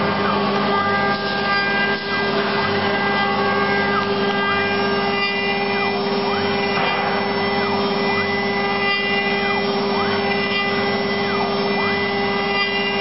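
FLDG1224 CNC router with a 4th rotary axis cutting a wooden cylinder: a steady whine from the spindle, with short whines rising and falling in pitch over and over as the axis motors speed up and slow down.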